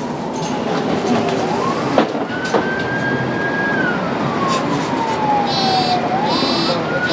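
Mercedes-Benz Conecto city bus running, with a whine over the running noise. The whine climbs quickly, holds at one high pitch, then slowly falls and climbs again near the end. There are a few sharp knocks.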